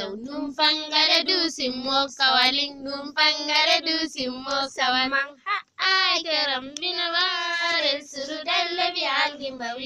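A child singing solo in a high voice, the phrases wavering in pitch, with a short pause a little past halfway.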